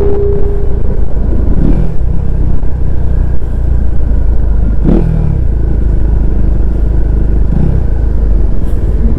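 Bajaj Pulsar N250's single-cylinder engine running with a steady, deep exhaust note, with a few short rises and falls in pitch.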